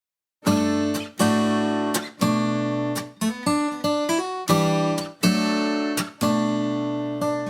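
Background music: acoustic guitar strumming chords, about one strum a second, starting about half a second in after silence.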